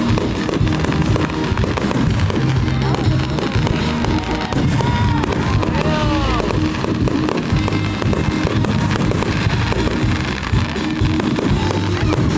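A continuous barrage of aerial fireworks bursting and crackling, with music playing underneath. A few brief whistling glides come about five to seven seconds in.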